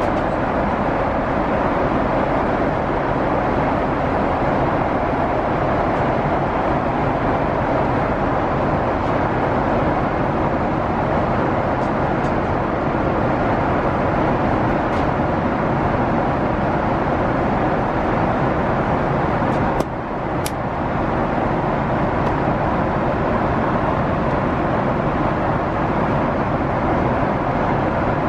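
Steady cabin noise of a Boeing 777-300ER airliner in flight: an even rush of engine and airflow noise that runs on without change. A couple of small clicks come about twenty seconds in.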